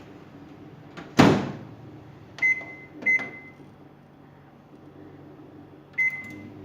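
Microwave oven door shut with a loud knock about a second in, then three keypad beeps setting it for one minute; after the third beep the oven starts running with a faint steady hum.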